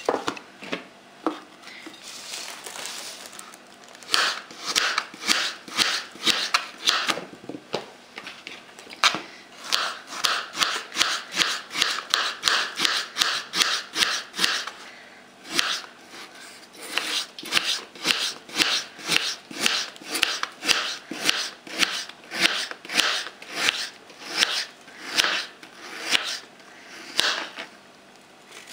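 A kitchen knife slicing peeled raw potato into thin rounds on a plastic cutting board: a steady run of short knocks, about two to three cuts a second, pausing briefly twice.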